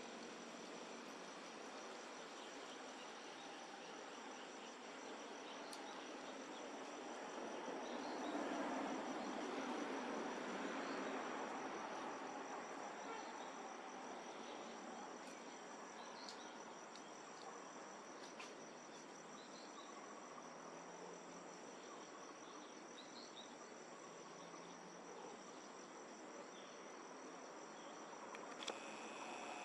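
Insects trilling steadily in a high thin tone, over a broad background rush that swells for a few seconds about a third of the way in.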